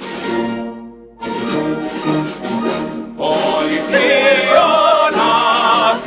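Concert wind band of clarinets, saxophones, flute, trumpets, trombones and tubas playing sustained hymn chords, swelling louder about three seconds in. Singers come in with the chorus near the end, their voices held with vibrato over the band.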